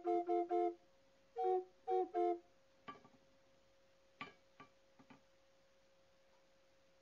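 Music: two quick runs of short, bright, flute-like notes, followed by a few faint clicks and then a stretch of quiet with a faint steady hum.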